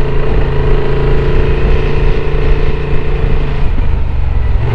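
Honda Transalp 750's parallel-twin engine running as the motorcycle rides along, heard from the bike itself. Its steady note dips about three and a half seconds in and comes back lower near the end, as the throttle eases off.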